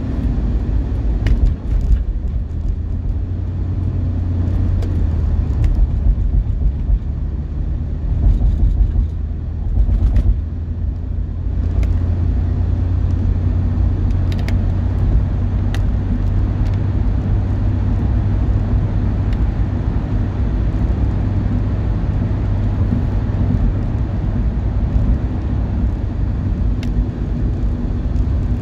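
Car driving at highway speed: a steady low rumble of engine and tyres on the road.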